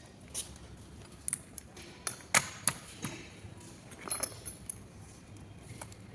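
Hand tools and metal gearbox parts clinking and knocking during disassembly of a manual transmission: a scatter of sharp metallic clicks, the loudest about two and a half seconds in.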